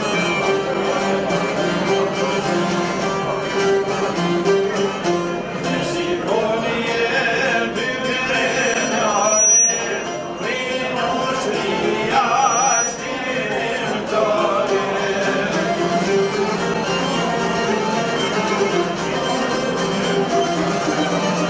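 Albanian folk ensemble playing live: çifteli and sharki long-necked lutes plucked together with violin and accordion, in a steady instrumental tune.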